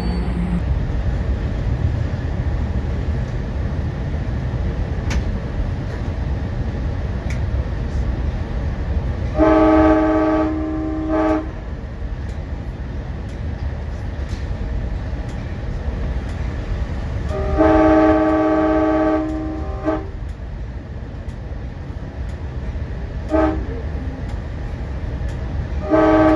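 Pacific Surfliner passenger train running, its steady rumble heard from aboard. The locomotive's chord air horn sounds the grade-crossing signal: two long blasts, a short one, then a final long blast starting near the end.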